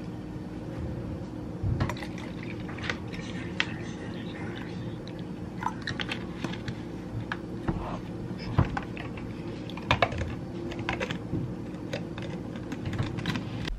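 Plastic water bottle crinkling and its cap clicking as water is poured into a plastic drinking bottle, whose lid is then screwed on. Scattered sharp clicks and crackles sound over a steady low hum.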